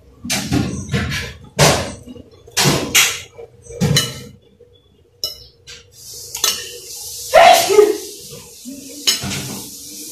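Spoon and fork clinking and scraping against a glass plate while eating, a run of sharp clicks and knocks. A faint steady hiss comes in about six seconds in.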